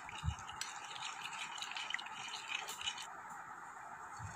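Silicone spatula stirring a yeast-and-warm-milk mixture in a glass bowl: faint soft scraping and light ticks against the glass that die away about three seconds in, over a steady low hiss.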